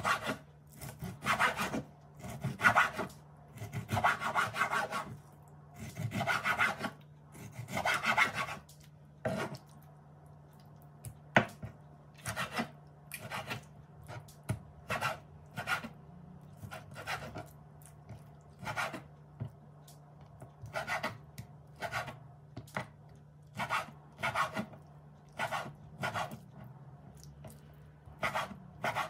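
Kitchen knife slicing raw chicken breast into strips on a wooden chopping board, the blade scraping through the meat onto the wood. The first third has longer drawn sawing strokes, then single cuts come about once a second, over a low steady hum.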